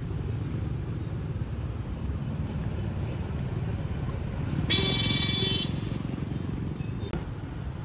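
Steady rumble of city street traffic, motorbikes and cars, with a vehicle horn honking once for about a second a little past halfway.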